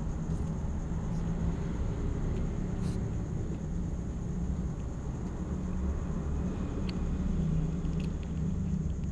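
A steady low rumble with a few faint clicks.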